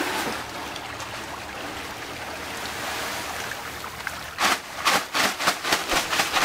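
A steady watery rush, then from about four seconds in a quick, irregular run of sharp rustles and crackles as a plastic feed bag is worked through a tub of fish-feed pellets.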